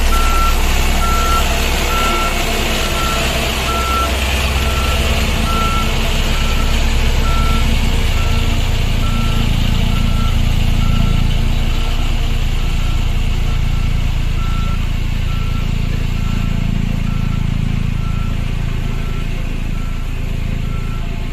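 Road roller engine running with its reversing alarm beeping steadily, about twice a second; the low engine rumble changes note about eight seconds in.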